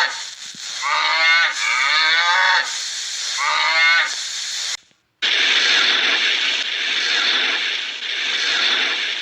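Farm animal calling three or four times, each call about a second long with a wavering pitch. About five seconds in the sound cuts out and is replaced by a steady hissing noise that swells gently every second or two.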